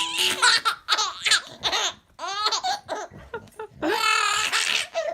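A baby laughing in quick high-pitched bursts, with a longer squeal about four seconds in.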